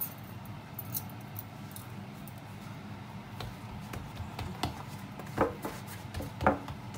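Hands patting and pressing a ball of barley dough flat on a floured wooden board: soft pats and light knocks, with a few louder knocks near the end.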